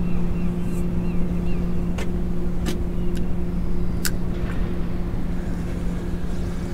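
Steady low engine hum with wind rumble on the microphone. About two to four seconds in, a few sharp clicks come from the spinning reel as the rod is handled.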